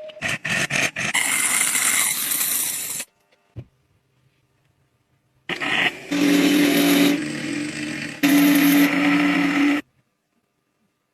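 A small metal lathe running and cutting, heard in two abrupt bursts of about three and four seconds with silence between them. The second burst carries a steady low hum.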